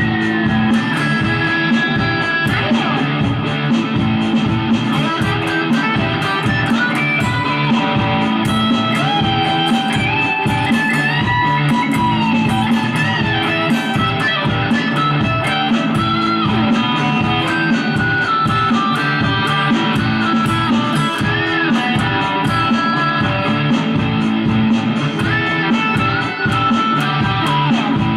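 Electric Telecaster-style guitar with active humbucking pickups, run through a Mooer GE200 amp modeller, playing improvised lead lines with frequent string bends over a looped backing track with a steady drum beat.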